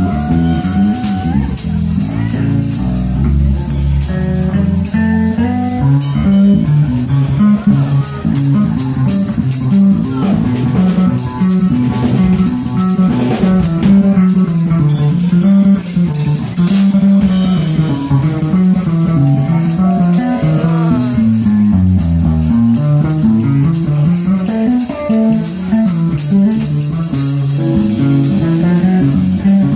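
A live jazz band playing. A bass line steps continuously through the low notes, a lead instrument plays quick runs above it, and the drum kit keeps time with steady cymbals.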